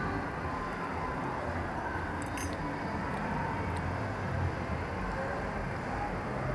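Steady room noise of a mall eatery: a low hum and hubbub with no clear words, and a few faint clicks, like cutlery on plates, a little over two seconds in.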